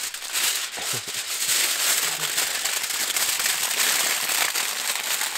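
Aluminium foil being crumpled and folded by hand around a chicken, a dense, continuous crinkling.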